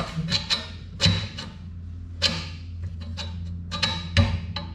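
Loose steel bar on a Gianni Ferrari 3x1 flail mower deck knocking and clanking against the deck's metal as it is rattled in its holder, a series of sharp metallic knocks with a ringing edge, loudest a little after four seconds. The bar is held by only one clip, which lets it bounce out. A steady low hum runs underneath.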